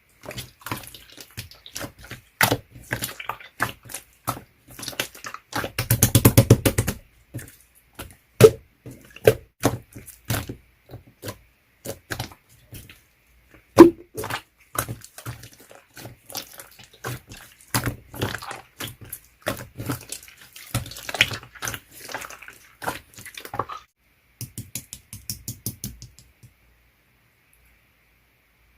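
Clear slime being pressed, poked and stretched, giving an irregular run of sticky clicks and pops, with a dense rapid crackle about six seconds in and one sharp pop about halfway; the sounds stop a couple of seconds before the end.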